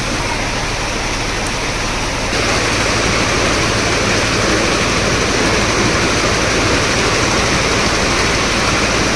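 Steady rushing of rainwater, which gets louder and fuller about two seconds in.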